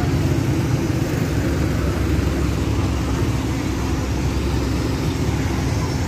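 Heavy diesel engine of road-paving machinery running steadily, a constant low rumble with a steady hum over it.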